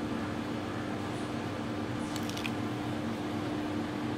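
Steady motor hum, like a kitchen fan running, with a few light clicks about two seconds in.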